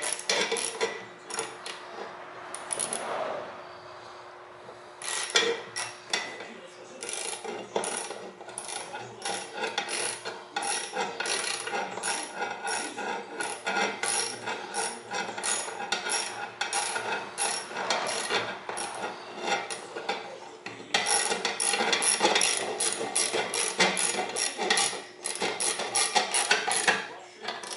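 Ratchet wrench clicking in quick, regular runs as long bolts are driven in, with a short pause a few seconds in and faster clicking near the end.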